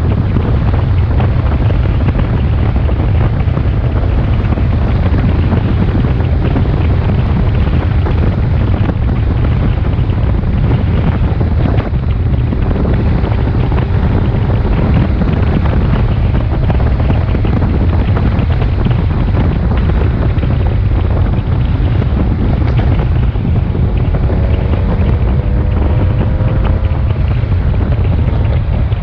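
Heavy wind buffeting on the microphone of a moving BMW K1600GTL motorcycle, with the bike's inline-six engine faintly underneath. The engine's pitch rises a few times near the end.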